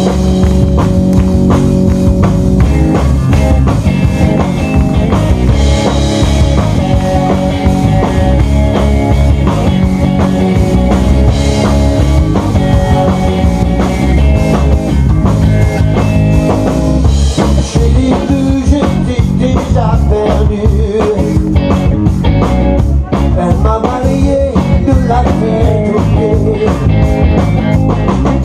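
Live rock band playing loud and steady: electric guitar, bass guitar and drum kit. The drumming grows busier from about two-thirds of the way in.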